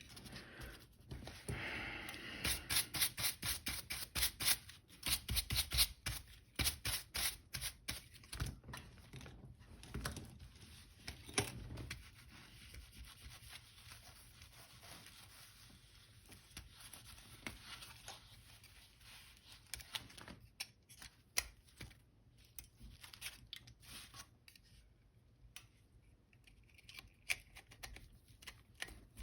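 Small hand tools clicking and scraping against the parts of a Canon A-1 camera as it is reassembled. A dense run of quick clicks comes over the first several seconds, then sparser, fainter clicks and rubbing.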